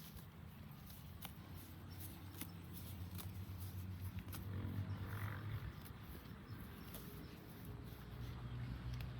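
A cow lowing: a long, low moo that swells to its loudest about five seconds in, with scattered light clicks and knocks.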